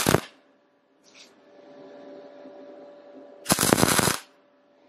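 MIG welding arc from a YesWelder MIG 250 Pro laying weld on 3/8-inch (10 mm) steel plate: a loud burst of arc ends just after the start, and a second short burst of well under a second comes about three and a half seconds in. Between the two bursts there is only a faint steady hum.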